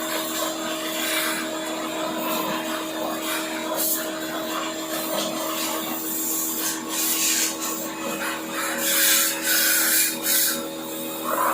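Scrubbing and rubbing, likely a brush or cloth working over a surface, with louder strokes in the last few seconds. A steady hum runs underneath.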